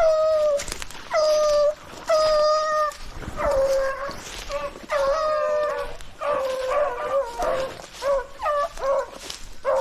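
A pack of rabbit dogs baying while running a rabbit: three long drawn-out cries at first, then from about three seconds in several dogs giving tongue at once in overlapping cries.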